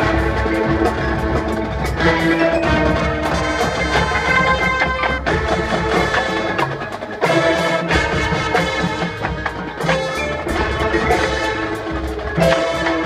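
Marching band playing live: winds and brass over front-ensemble mallet percussion, marimbas and bells striking many quick notes.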